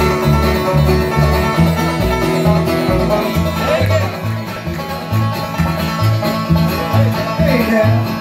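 Bluegrass band playing an instrumental intro on banjo, acoustic guitar, fiddle and upright bass, the bass keeping a steady beat of about two notes a second.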